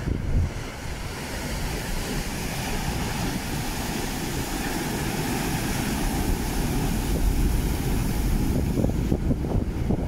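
Sea waves breaking on rocks: a long rush of surf that builds over the first seconds and thins near the end. Wind rumbles on the microphone underneath.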